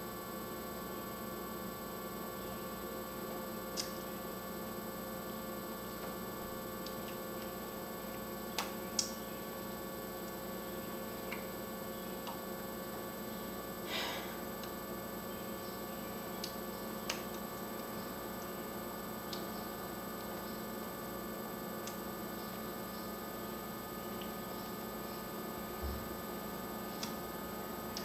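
Steady electrical hum made of several fixed tones over a low hiss, with a few faint, brief clicks scattered through it.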